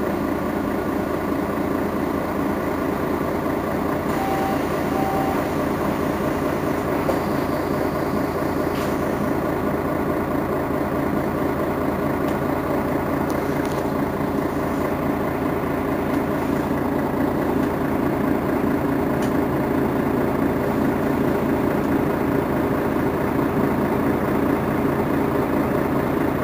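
Mercedes-Benz Citaro Facelift city bus's rear-mounted diesel engine idling steadily at a stop. Two short beeps about four seconds in.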